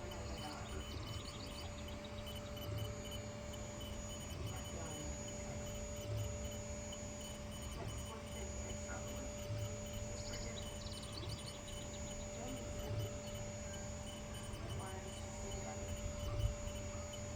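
Sculpfun S9 diode laser engraver running: a steady hum with constant tones, broken now and then by short whirring chirps from its motors as the head moves.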